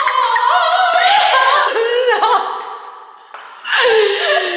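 A woman's high voice in long, drawn-out wordless singing. It breaks off about three seconds in and starts again on a falling note.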